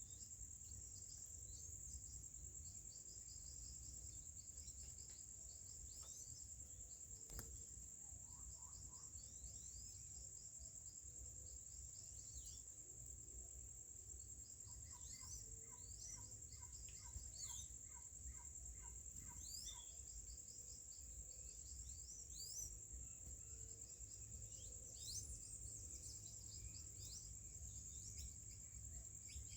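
Faint, steady high-pitched drone of crickets or similar insects, with scattered short falling bird chirps. About halfway through there is a run of quick, evenly repeated lower notes lasting a few seconds.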